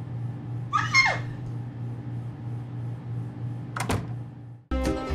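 A short, high-pitched squeal falling in pitch about a second in, over a steady low room hum. Near the end a single sharp click, as of a door's deadbolt, then plucked-string music begins.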